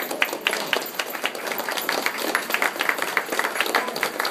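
Audience applauding: many hands clapping densely together.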